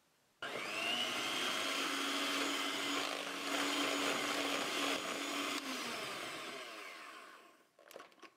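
Electric hand mixer switching on about half a second in, its motor whine rising to speed as twin wire beaters whip cheesecake batter. It runs steadily for about five seconds, then dies away, with a few light clicks near the end.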